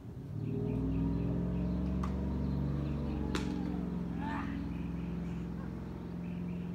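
An engine running at a steady low pitch, swelling in over about the first second and then holding, with two sharp clicks about two and three and a half seconds in.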